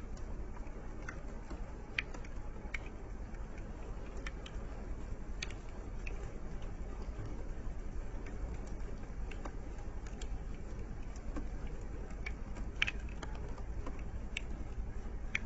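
Light rain: scattered raindrops ticking irregularly on a vehicle, over a steady low rumble.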